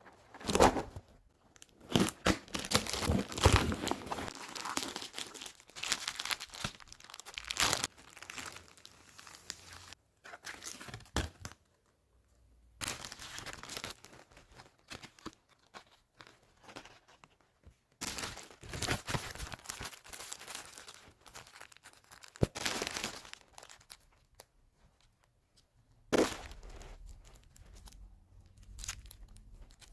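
Packaging around a book being torn open and crinkled by hand, in irregular bursts of rustling and tearing with short pauses between.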